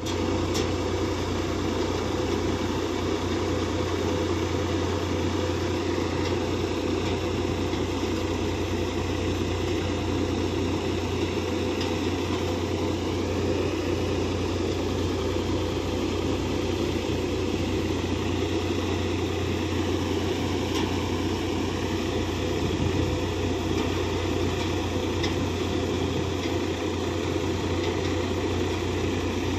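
Tractor-driven multi-crop thresher running steadily while threshing fennel: the tractor engine's steady low hum under the even noise of the threshing machinery.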